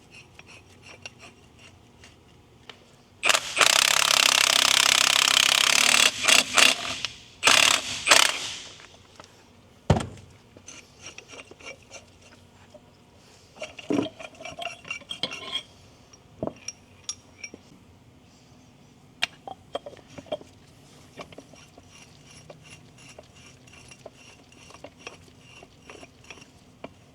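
Hand tools and metal parts clinking and scraping while front-suspension parts are being worked on. About three seconds in there is a loud hiss lasting about three seconds, then a few shorter hissing bursts. A single knock follows near the middle, and scattered light clinks run through the rest.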